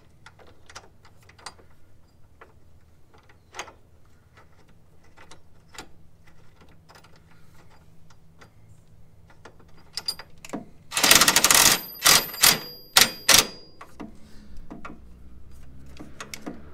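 Hand ratchet clicking as a bolt is run into the steering-shaft U-joint at the steering rack: scattered single clicks at first, then about two-thirds of the way through a fast run of ratcheting followed by several loud separate clicks. The bolt is snugged but left a little loose.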